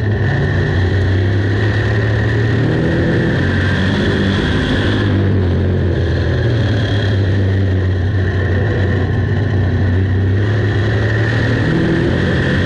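Big-block V8 engine of a dirt modified running hard at racing speed, heard from inside the car, with small rises and dips in pitch as the throttle is worked.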